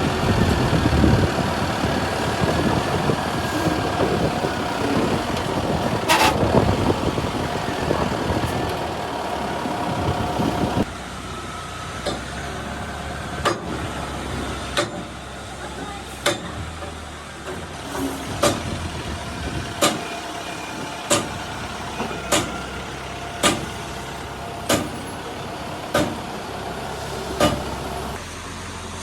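A truck engine running amid loud workshop noise. About eleven seconds in, the sound changes abruptly to sharp knocks repeating evenly, roughly once every second and a bit.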